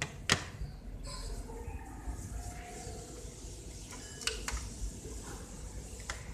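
Low steady room rumble with one sharp click shortly after the start and a few fainter clicks later on.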